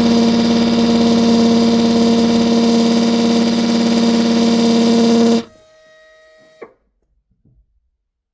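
Old right-angle drill running at a steady speed with a loud, even whine while drilling a stop hole into windshield glass at the end of a crack. About five seconds in the drill cuts off, a faint tail lingers, and it ends with a sharp click.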